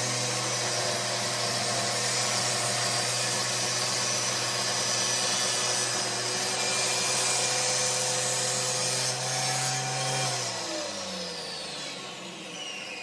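Table saw running and crosscutting a maple and mahogany strip panel on a sled: a steady motor hum under the hiss of the blade in the wood. About ten seconds in, the saw winds down, its hum falling in pitch.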